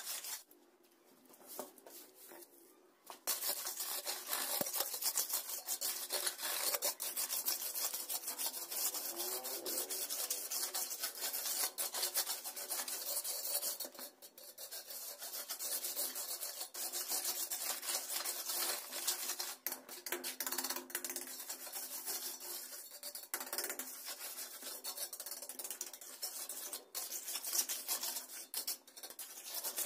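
Hand trowel scraping and rubbing as it spreads wet terrazzo mixture over the floor, a rough run of short strokes that pauses briefly about a second in.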